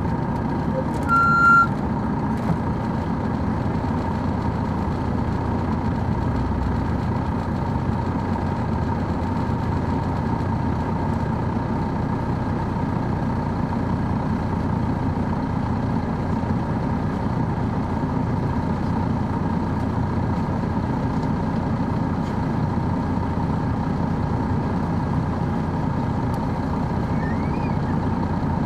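Detroit Diesel Series 60 diesel engine of an MCI D4000 coach running steadily, heard from inside the bus, with a faint steady high whine under it. A short beep sounds about a second in.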